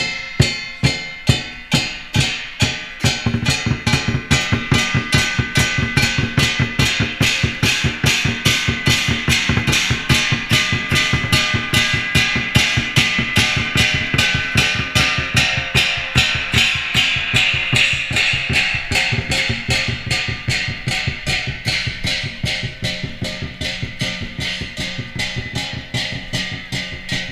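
Dragon-dance percussion: large barrel drums struck with cymbals and gongs in a fast, steady beat, the cymbals and gongs ringing between the strokes. The drumming grows denser and heavier about three seconds in.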